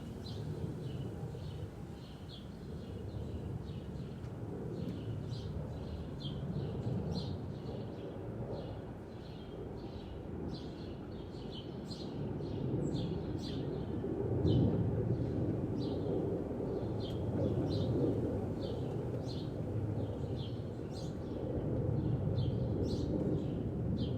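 A small bird chirping over and over, about two short chirps a second, over a low rumble of wind and distant traffic that swells and fades.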